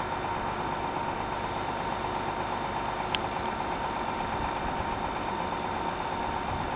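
A steady mechanical hum with a faint constant whine, unchanging throughout, with one short high blip about three seconds in.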